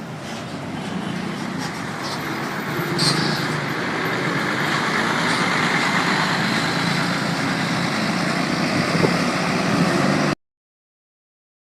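A bus passing, its engine and road noise building steadily louder and then holding, with no horn sounding. The sound cuts out abruptly near the end.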